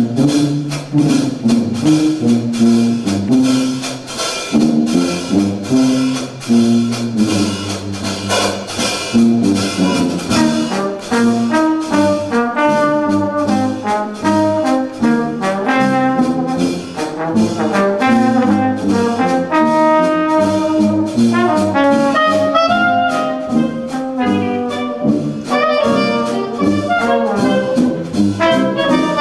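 Dixieland jazz band playing live: brass horns and a clarinet over a steady beat.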